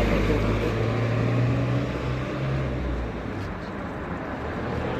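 A motor vehicle engine running with a low hum over street noise. It fades away about three seconds in.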